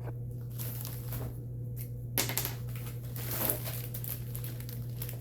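Packaging of a shipped parcel crinkling and rustling as it is handled and opened, in several uneven bursts over a steady low hum.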